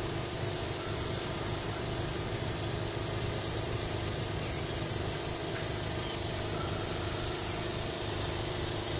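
Steady, unbroken high-pitched drone of insects in the summer heat, over a low even hum.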